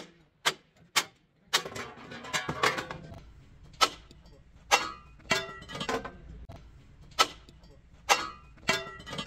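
Hand hammer striking a steel truck chassis frame, about a dozen sharp metallic blows at an uneven pace, each with a short ring.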